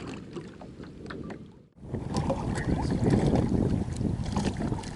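Wind buffeting the microphone and water moving around a fishing kayak, with scattered small knocks and clicks. The sound drops out for a moment about two seconds in and comes back louder.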